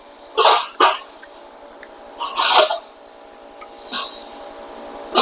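Handling sounds of someone working on motorcycle handlebar parts: several short scrapes and rattles, about a second apart, over a faint steady hum.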